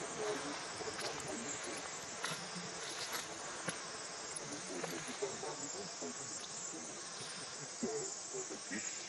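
Steady, high-pitched buzzing chorus of insects in the trees, with faint scattered sounds underneath.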